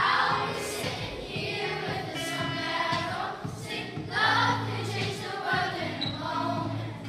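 A class of primary school children singing together as a choir, in phrases a second or two long, over held low accompanying notes.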